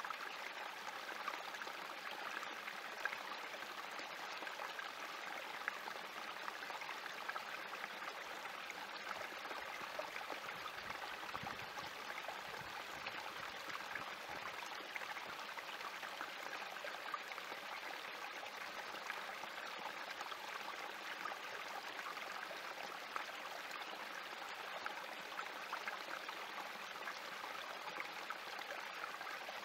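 Small spring creek trickling and splashing steadily over rocks in a thin cascade.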